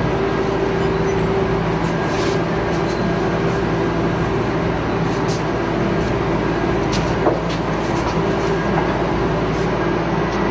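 Steady machine-like hum over an even rushing noise, with a few faint clicks.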